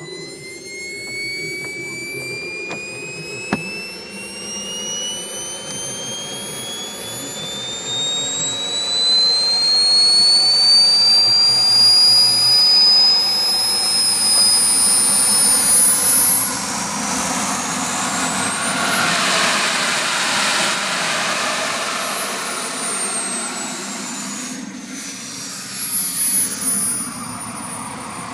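Model jet turbine in an Elite Aerosports Picaro RC jet spooling up in its start-up sequence: a whine that climbs steadily in pitch and grows louder, with a second, higher whine that rises and falls about two-thirds of the way through.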